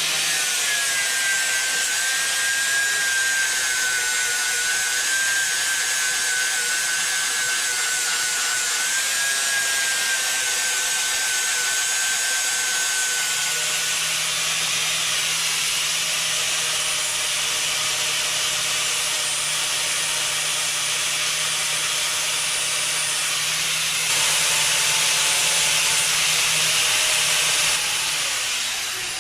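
Electric angle grinder grinding rust off a steel hitch plate down to bare metal for welding: a steady, gritty grinding noise with a high whine. The whine changes pitch about halfway through, the grinding gets louder a few seconds before the end, and the grinder then winds down.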